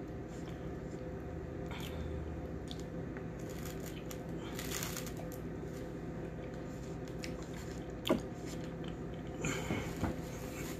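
Close chewing and wet mouth sounds of a person eating oxtails and rice, with a few short clicks, over a low steady hum.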